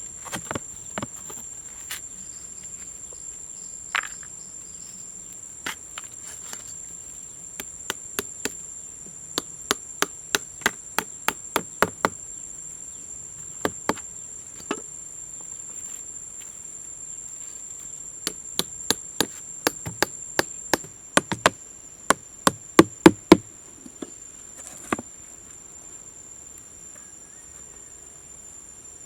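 Sharp knocks in irregular runs of two or three a second, the loudest about three-quarters of the way through, over a steady high-pitched insect drone.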